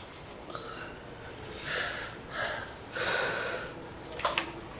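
A person's breathy gasps and sniffs, several in a row, with a couple of faint clicks near the end.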